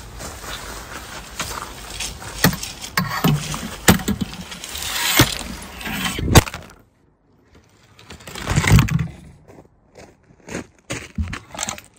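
Tent fabric rustling and dragging across crushed gravel, with scattered clicks and knocks from the metal tent poles. A loud knock about six seconds in, a brief hush, then more rustling and clattering.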